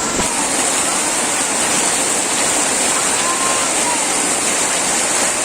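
Heavy monsoon downpour during a nor'wester storm: torrential rain pouring steadily as a loud, even rushing hiss.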